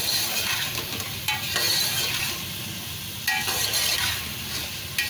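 A metal spoon stirring taro masala in a metal pot while the oil sizzles, as the masala is fried down (bhuna) in mustard oil. A couple of louder scrapes of the spoon against the pot ring briefly.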